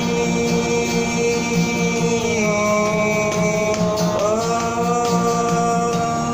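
A song with male voice and guitar accompaniment: long held melody notes glide up to new pitches about two and a half and four seconds in.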